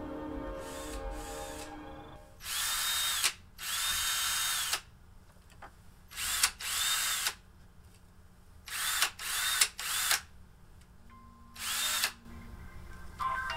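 Power drill run in about eight short bursts, each whining up to speed, holding, and winding down when the trigger is let go. Background music fades out in the first two seconds.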